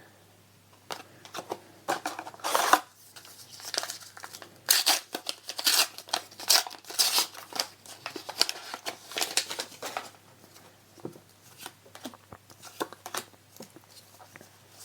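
A trading-card booster pack's foil wrapper being torn open and crinkled: a run of sharp rustling tears over several seconds, then fainter rustles and clicks as it is handled.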